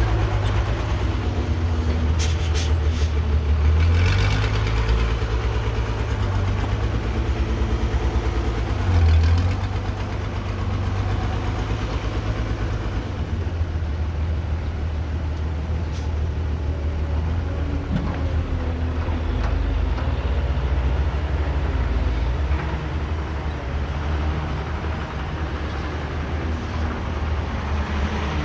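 Diesel engine of a Caterpillar 312B excavator running as the machine works: a deep, steady rumble whose level swells and eases, with a few sharp clanks about two seconds in.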